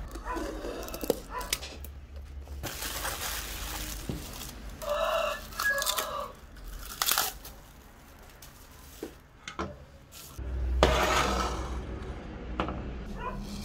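Packaging being opened: a utility knife slitting packing tape on a cardboard box, then plastic wrap and bubble wrap crinkling and tearing as they are pulled off, with sharp clicks along the way. A few short pitched calls come in about midway.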